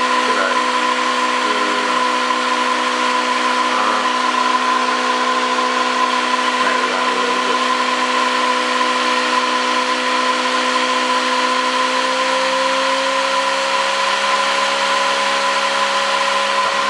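Home-built angle-magnet pulse motor, a Bedini SG-style rotor, running steadily with a loud whirring hum. Its pitch rises slightly about twelve seconds in.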